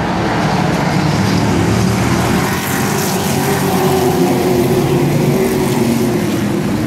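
A field of short-track race trucks running at speed around the oval. Several engines overlap in a loud, steady drone whose pitch drifts slightly as the pack goes by.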